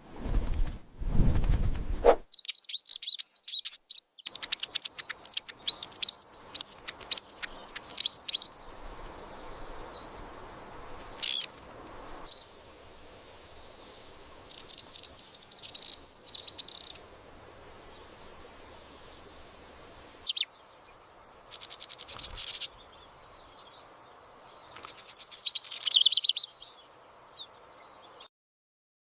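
Goldfinch chirping in bouts of rapid, high twittering calls, with quieter pauses between the bouts. Two brief noisy thumps come in the first two seconds.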